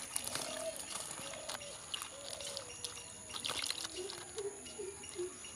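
Sliced brinjal being stirred by hand in water in an aluminium bowl: wet sloshing with many small clicks of the slices against each other and the metal, over a steady high-pitched whine.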